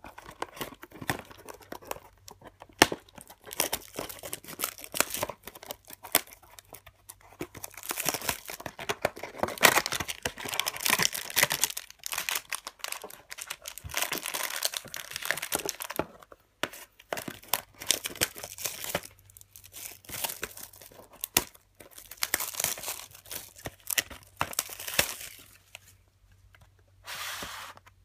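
Trading cards and foil pack wrappers being handled by hand: irregular rustling, crinkling and tearing, with sharp clicks of card edges.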